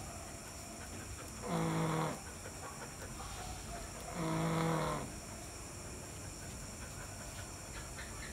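Pug snoring in its sleep: two pitched snores, each about half a second long, a couple of seconds apart.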